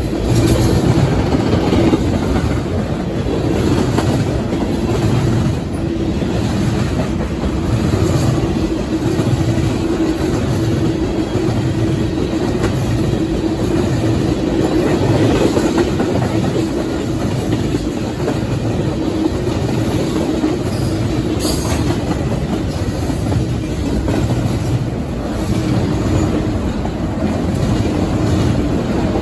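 Freight cars (boxcars, tank cars and autoracks) rolling past close by: a steady rumble of steel wheels on rail with a regular clatter about once a second and a steady hum throughout.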